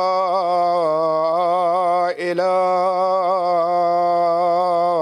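A male muezzin chanting the adhan, the Islamic call to prayer, in long ornamented held notes with one short breath about two seconds in. This is the line "Ashhadu an la ilaha illallah", sung slowly with a wavering melody.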